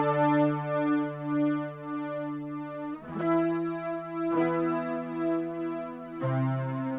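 Synth lead tone from a Boss SY-200 synthesizer pedal, lead variation 18: long held notes rich in overtones, with a new note struck about three seconds in, again a second later, and once more near the end.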